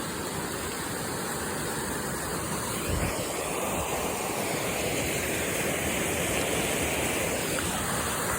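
Rushing water of a waterfall, a steady roar that grows slightly louder.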